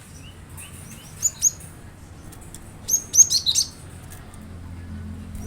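Cinereous tit (gelatik batu) song: a few soft notes, then two sharp high chirps about a second in, followed by a quick run of five or six loud chirps that sweep down in pitch near the middle.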